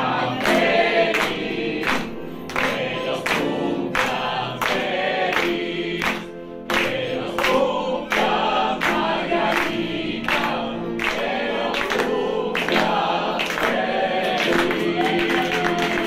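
A group of people singing a birthday song together, clapping their hands in time at about two claps a second.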